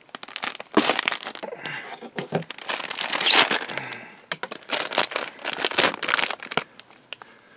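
Foil snack packet crinkling and crackling as it is handled and cut open with scissors, with scattered sharp clicks and snips. The rustling stops about a second before the end.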